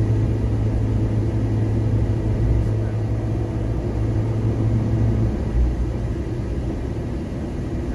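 Cabin noise of a passenger van driving at speed: a steady low engine and road rumble. The deep hum falls away about five seconds in.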